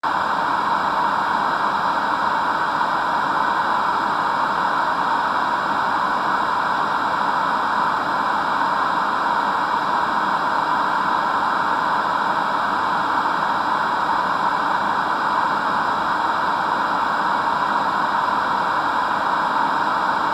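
Steady, unchanging static hiss, narrow and mid-pitched, with a faint steady tone at its centre.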